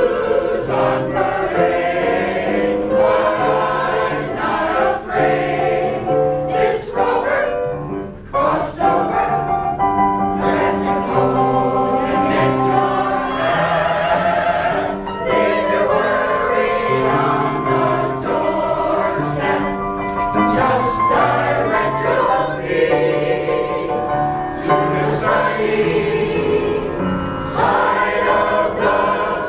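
Mixed choir of women's and men's voices singing a song together, accompanied by an upright piano.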